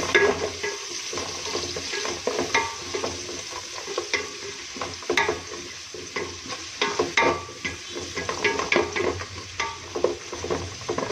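Spatula stirring and scraping across the bottom of a metal pot in irregular strokes, with onion, green chilli, curry leaves and whole spices sizzling in hot ghee: the tempering stage before water is added for ghee rice.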